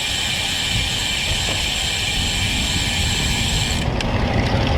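Road bike's rear freewheel hub buzzing while coasting: a steady high whir that stops abruptly about four seconds in. Under it is a constant low rumble of wind on the microphone.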